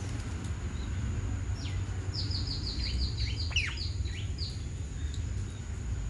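A bird calling a quick run of about ten short, high, falling chirps about two seconds in, over a steady low background rumble.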